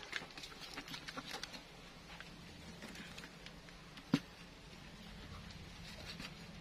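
Chopped banana-trunk pieces being handled and set into a plastic pail lined with screen mesh: light scattered clicks and rustles, then a single sharp knock about four seconds in. A faint steady hum runs underneath.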